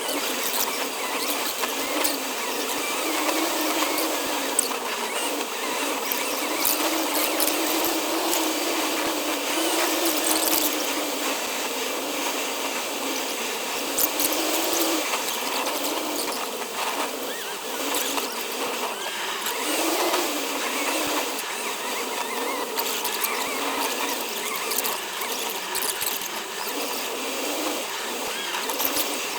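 Car driving noise sped up to hyperlapse speed, so that the engine and road noise come out as a steady, high-pitched wavering buzz and whine with scattered ticks.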